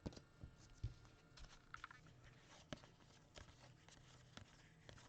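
Near silence with scattered faint taps and clicks of trading cards being handled and shuffled.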